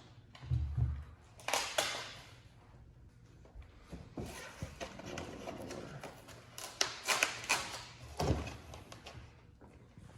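Rustling and crinkling of a large sheet of vinyl being handled and laid against a truck's back window, with two dull thumps, one near the start and one near the end.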